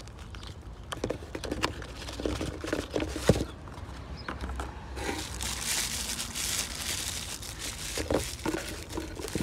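Cardboard box and packing paper being handled: paper rustling and crinkling, with light knocks of cardboard. A longer stretch of steady rustling comes about halfway through.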